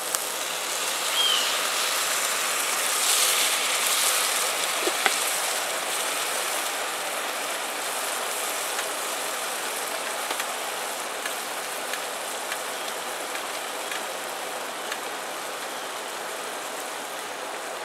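Liquid poured into a hot pot of frying corn, sizzling and bubbling: louder for the first few seconds, then easing into a steady simmering hiss.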